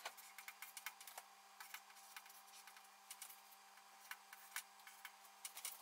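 Near silence with faint, irregular clicks and taps of chalk on a chalkboard as lines and symbols are drawn, over a faint steady hum.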